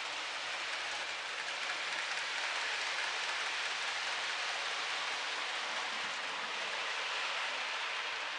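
OO gauge model train running along its track, a steady rushing whirr of small wheels on rail and the locomotive's motor.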